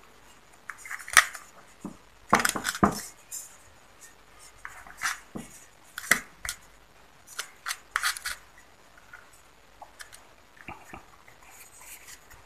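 Irregular metallic clicks, taps and scrapes of a thin rod working loose parts inside a Yamaha Autolube two-stroke oil pump body. The sharpest clicks come a little over a second in and two to three seconds in.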